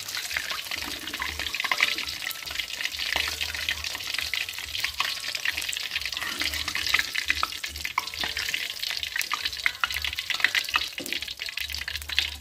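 Catfish pieces deep-frying in a wok of hot oil, a steady crackling sizzle; the fish is cooked through.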